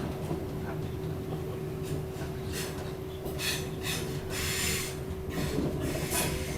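British Rail Class 319 electric multiple unit running, heard from inside the carriage: a steady low rumble with a constant hum. From about two seconds in come several short bursts of high hissing, the longest just before the five-second mark.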